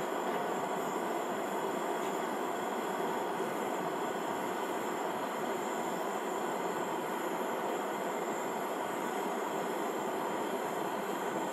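Steady hissing from a portable gas camp stove and the batter frying in the pan on it, unbroken throughout.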